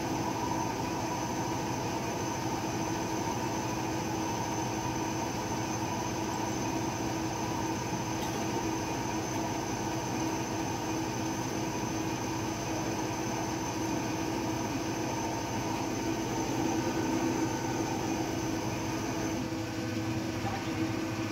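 CK6432 CNC lathe with its spindle and chuck spinning while a turret-mounted tool turns a bar, a steady mechanical hum with a high whine. The whine stops about 19 seconds in.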